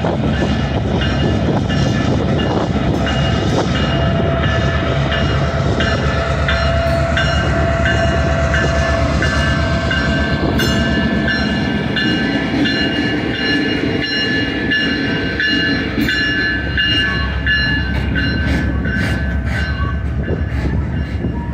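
Watco GP38 locomotive's two-stroke V16 diesel running as it pulls past, followed by a string of empty flatcars rolling by, with steady high-pitched wheel squeal. In the second half the car wheels click sharply over the rail joints.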